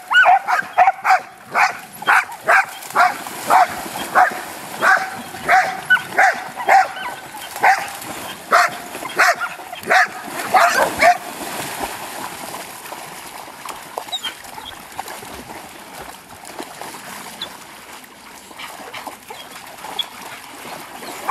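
A dog barking excitedly over and over, about two barks a second, stopping about eleven seconds in. After that, softer splashing of dogs wading and swimming in the water.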